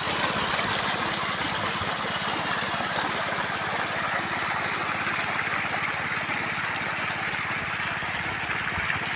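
Small engine-driven water pump running steadily, with water rushing and gurgling as the pond is pumped out.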